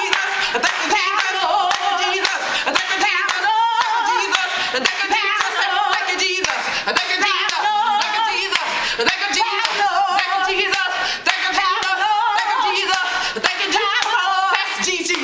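Fast rhythmic hand-clapping with two women's voices singing a capella in an old-time gospel style.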